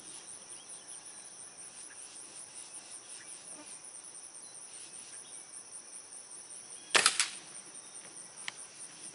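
Spring-piston air rifle firing once about seven seconds in: a sharp crack with a second crack a fraction of a second after it. Crickets chirp steadily throughout.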